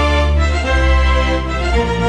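Background music of held string chords over a deep bass, the chord changing twice.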